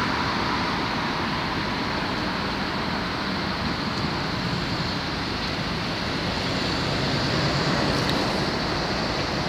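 Steady road-traffic noise on a busy city street, an even rush of passing vehicles.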